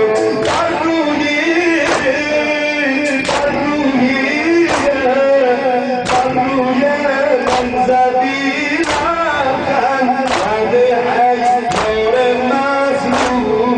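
A male reciter singing a Shia mourning lament (noha), the mourners striking their chests together in time with it, a sharp slap about every second and a half, sometimes in pairs.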